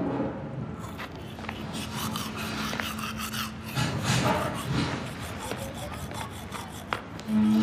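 Manual toothbrush scrubbing teeth in quick, rhythmic back-and-forth strokes.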